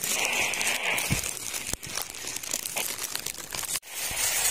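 Dry leaves and brush crunching and rustling underfoot, a steady crackly rustle with many small snaps.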